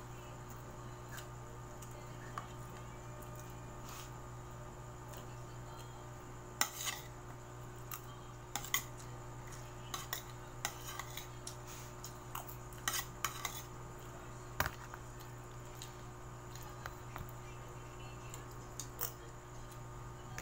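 Metal spoon clinking and scraping against dishes and a plastic container: a scatter of sharp clinks, most of them in the middle, over a steady low hum.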